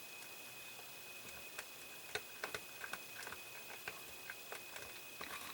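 Faint, irregular small clicks and taps of a small screwdriver and plastic model parts being handled as a tiny screw is driven into a plastic model kit, most of them in the middle stretch.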